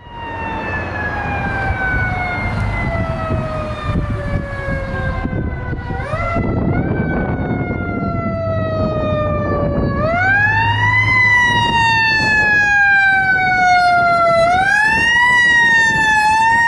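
Pierce fire engine's siren wailing over its engine: the pitch falls slowly, then winds back up quickly three times before sliding down again.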